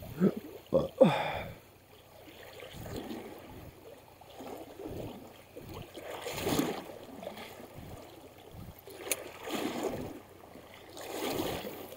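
Rushing river current, with a few louder swells of noise every few seconds, the loudest about a second in.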